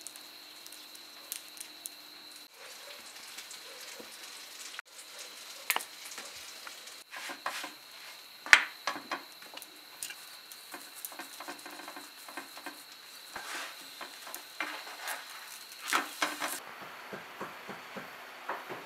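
Flatbread cooking on a hot griddle: light sizzling with scattered sharp clicks and taps, the loudest about eight and a half seconds in. A faint steady high whine runs under most of it and stops near the end.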